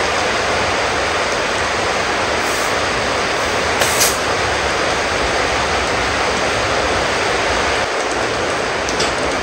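A steady, loud rushing noise without any pitch, with a brief knock about four seconds in and a fainter one near the end.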